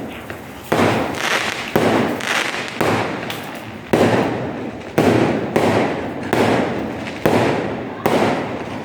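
Aerial fireworks shells bursting in quick succession, about one sharp bang a second, each trailing off in a fading rumble before the next.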